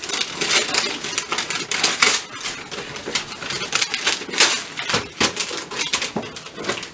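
Wrapping paper being torn and crumpled: a loud, dense, irregular run of crackles that starts abruptly.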